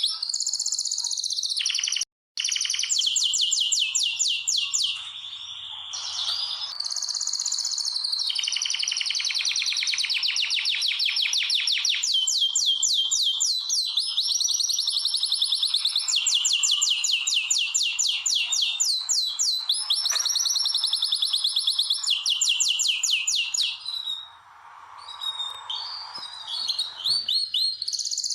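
Domestic canaries singing: long, fast trills of repeated high notes, switching from one roll to another every few seconds. The sound cuts out for a moment about two seconds in.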